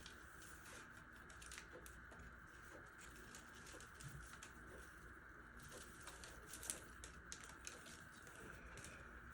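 Near silence: a faint steady hum of room tone with scattered light clicks and taps, one a little sharper about two-thirds of the way in.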